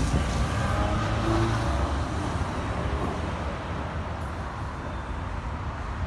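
Low, steady rumble of a train moving along the track, slowly fading. A few faint whining tones near the start die away within the first two seconds.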